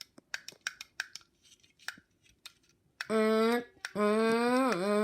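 Elevator pushbuttons clicked several times in quick succession, then the emergency alarm sounding as one long steady buzzing tone from about three seconds in, breaking off briefly and dipping in pitch twice.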